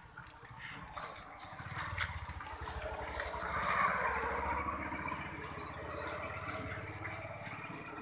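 A motor vehicle passing by: its engine noise grows, is loudest about four seconds in, then fades.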